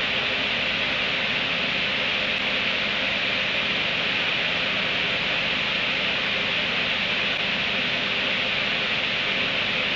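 Steady, even hiss with no distinct sounds standing out, no hiccups or other sounds from the animal.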